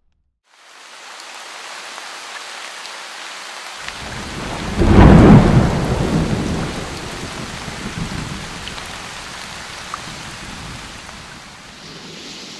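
Thunder in a storm. A steady hiss of the storm starts about half a second in, then a deep rumble of thunder builds about four seconds in, is loudest a second later, and dies away slowly over several seconds.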